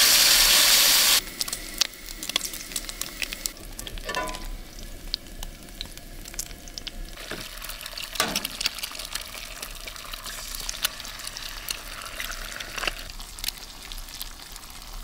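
Bacon and eggs frying in a pan, sizzling steadily with many small crackles and pops. A loud burst of hissing fills the first second or so, then gives way to the quieter crackling fry.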